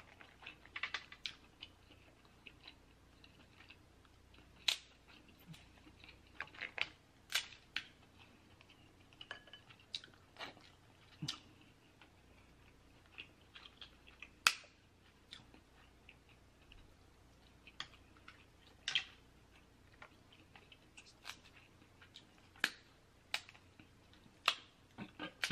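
Crab leg shells cracking and snapping as they are broken apart by hand to get at the meat: scattered sharp cracks at irregular intervals, the loudest about halfway through, with quiet chewing between.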